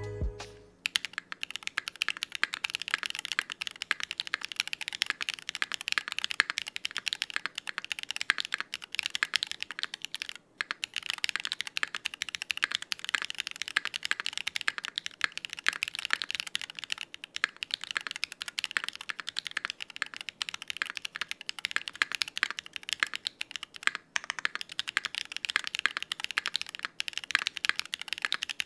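Continuous typing on a Smith+Rune Iron160 60% keyboard with a copper plate, lubed Geon Black switches and GMK keycaps: a dense, unbroken run of key clacks. Music fades out within the first second.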